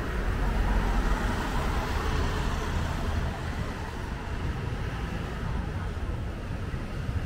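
Road traffic: a steady rush of passing vehicles, a little louder in the first couple of seconds.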